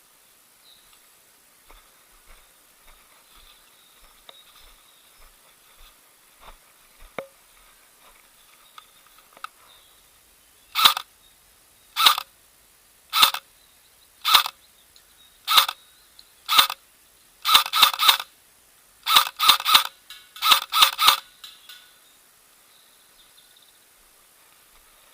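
Double Bell 813S airsoft carbine shooting. Light clicks of handling come first, then six single shots about a second apart, then quick strings of two or three shots.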